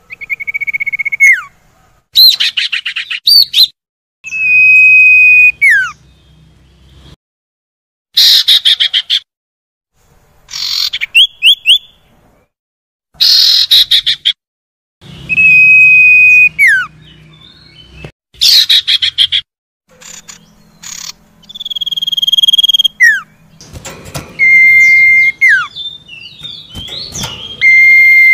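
Common iora (sirtu, cipoh) calling over and over. Long, level whistled notes each end in a sharp downward slur, and they alternate with quick chattering bursts, with short silent gaps between phrases.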